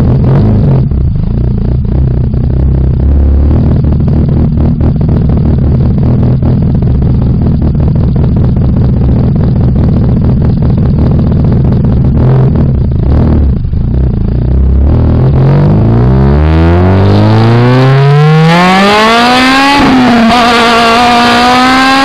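Honda K20 inline-four engine heard at the tailpipe through a 70 mm Skunk2 Mega Power R exhaust and PLM header. It first runs at a steady low drone at low revs while the car rolls. Then, about fifteen seconds in, the note rises steeply in pitch for about five seconds as the car accelerates, and holds high near the end.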